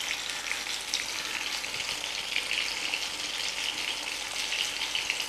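Marinated mackerel shallow-frying in hot coconut oil, the oil sizzling with a steady, fine crackle.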